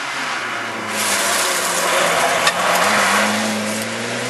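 Rally car passing at speed: its engine note holds steady, then climbs about three seconds in as the car accelerates away, over a loud rush of tyre and dirt noise that is loudest as it goes by. A single sharp crack sounds about halfway through.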